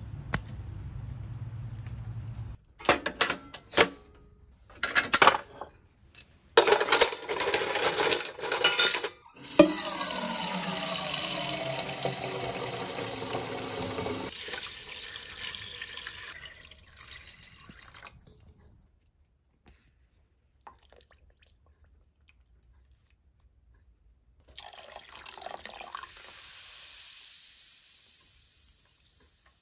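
Tap water running into an empty tin can: loud at first, then fading out over several seconds. Before it comes a few bursts of metal clatter, and near the end a softer hiss swells and fades.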